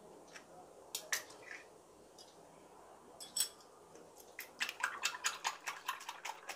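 Spiral coil whisk beating a raw egg in a small glass bowl, the metal coil clinking against the glass: a few separate taps at first, then quick rhythmic clinking, several strokes a second, from about four and a half seconds in.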